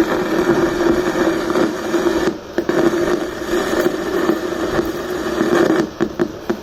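Two test speakers on a 2.1 home theater amplifier board giving out a steady storm-like rushing noise with a hum-like tone under it, a fault noise coming through both channels; the repairer puts it down mostly to the TDA2030 amplifier ICs, possibly dry solder joints on them. The noise dips briefly twice.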